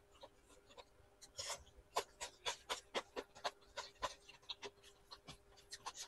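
Close-miked eating sounds: a quick run of soft wet clicks and smacks from fingers mixing rice and dry chicken curry on a plate and from chewing, over a faint steady hum.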